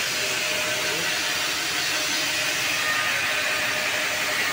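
Stone-cutting saw running with a steady hiss, its blade cooled by spraying water, with a few faint machine tones underneath.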